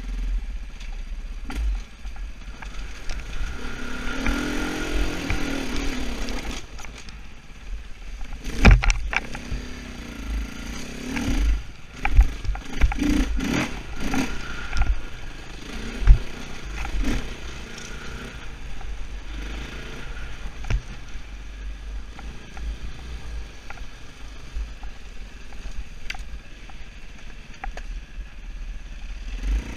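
Husaberg 450FE enduro bike's single-cylinder four-stroke engine revving up and down on a rough trail. Sharp knocks and clatter come from the bike over bumps, loudest about a third and about halfway through.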